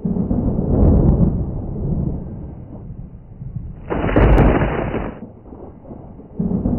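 Title-sequence sound effects, thunder-like. A deep rumble opens, a harsher noise burst with a sharp crack comes about four seconds in as the logo forms, and the deep rumble returns near the end.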